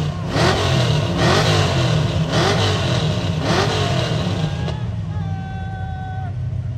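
Car engines rumbling and revving in surges, with people shouting over them. A steady held tone sounds for about a second near the end.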